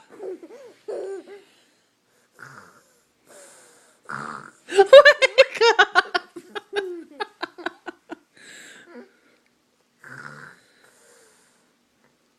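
Playful fake snoring: a string of short, separated snorting breaths. Around five seconds in it breaks into a loud run of quick giggles that fade out, then snoring breaths return.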